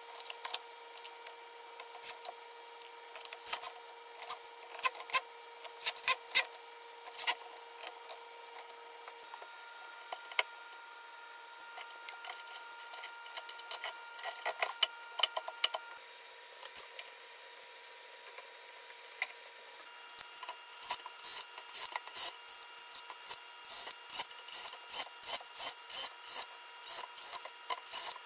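Hand assembly work on the plucker's metal frame and plastic barrel: scattered clicks and taps of tools and parts being handled, then about seven seconds from the end a regular run of sharp clicks, about two a second. A faint steady hum sits underneath.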